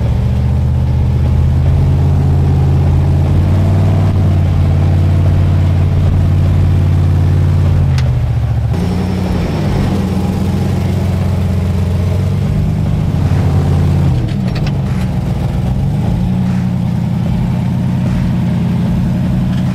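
An off-road 4x4's engine running, steady for the first several seconds, then revving up and down in short pushes as the vehicle crawls up a steep rock obstacle.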